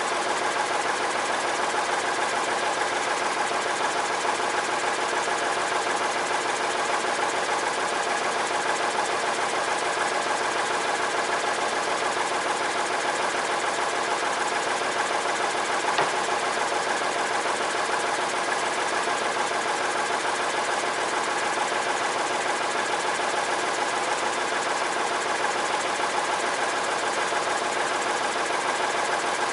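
Band sawmill's engine running steadily at an even speed, with one faint click about halfway through.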